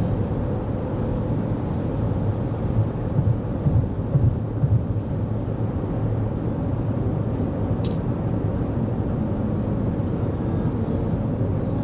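Steady road and tyre noise of a 2024 Toyota Corolla Cross cruising on the interstate at highway speed, heard from inside the cabin, with a few low bumps about four seconds in and a short click near eight seconds.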